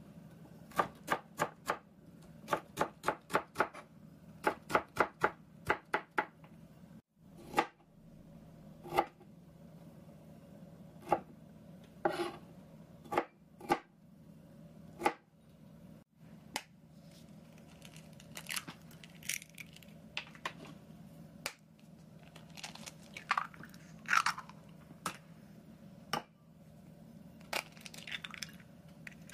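Kitchen knife chopping bell pepper and broccoli on a plastic cutting board: quick runs of sharp chops, about four a second, for the first few seconds, then slower single cuts.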